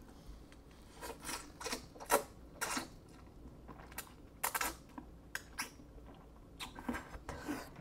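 Close-miked eating sounds: quiet, irregular wet smacks and slurps as a mouthful of stir-fried instant noodles is sucked in and chewed.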